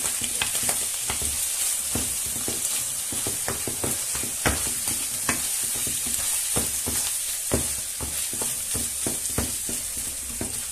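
Rice, tuna and tomato sauce sizzling in a frying pan while a wooden spoon stirs and scrapes through the mixture. A steady high sizzle runs under many irregular clicks of the spoon against the pan.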